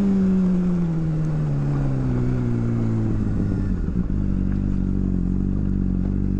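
Sport motorcycle engine slowing down with the throttle rolled off, its note falling steadily for about three seconds. About four seconds in it settles to a steady low idle as the bike rolls on slowly.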